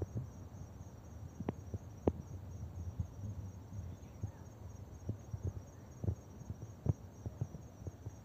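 Insects chirping in a steady, evenly pulsed high trill from the hillside scrub. Beneath it are a low rumble and scattered sharp knocks, the loudest about a second and a half in, two seconds in, and seven seconds in.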